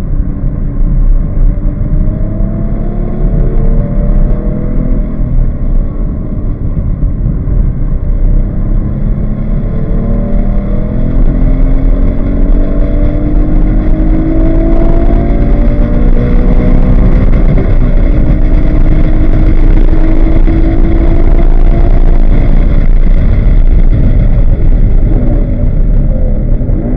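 Porsche 911 GT3's flat-six engine pulling hard in third gear at full throttle, revs climbing steadily to about 6,300 rpm, then holding high before easing off near the end as the car slows for a corner. Heard from inside the cabin, with wind and tyre noise underneath.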